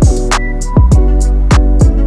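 Background music with a steady beat: punchy kick drum and hi-hat over sustained instrument notes.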